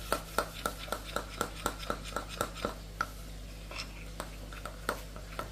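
Metal teaspoon stirring flour into cooking cream in a small glass bowl, clinking against the glass about four times a second, then slowing to a few irregular clinks about three seconds in.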